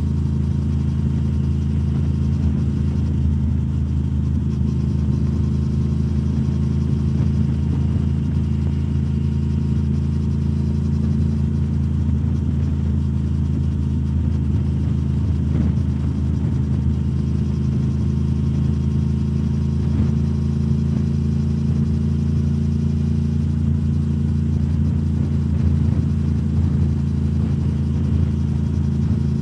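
2021 Triumph Speed Twin 1200's parallel-twin engine cruising at a steady, unchanging speed, heard through British Customs Turnout exhaust tips.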